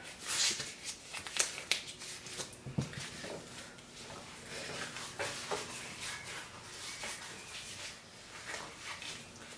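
Scattered light rustling and clicks, as of small objects being handled, with a few sharper clicks in the first three seconds.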